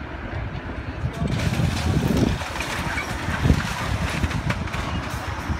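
Hydraulic excavator tearing into a wooden house's demolition debris: the diesel engine runs steadily while splintering lumber and debris crunch and crack. It is loudest about two and three and a half seconds in.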